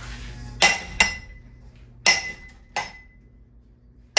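Hard metallic strikes on a ceiling fan being smashed, each leaving a short ringing tone. Two come in quick succession about half a second in, two more around two to three seconds in, and another lands right at the end.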